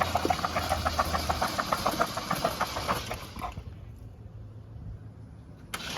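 Hydrolocked 2016 Chevy Equinox engine being cranked over on the starter to clear water from it, with a rapid rhythmic chuffing of about six beats a second. The cranking stops about three and a half seconds in, and a second burst starts near the end.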